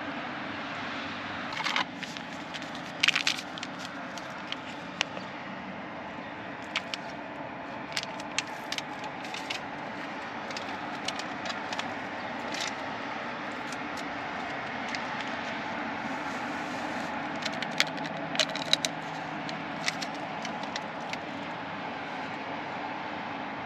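Steady background rumble with many small clicks, crackles and rattles scattered through it, the loudest about two to three seconds in and again near the end.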